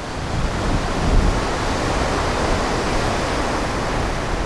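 Ocean surf and steam where lava flows into the sea, a steady rushing noise that builds a little over the first second.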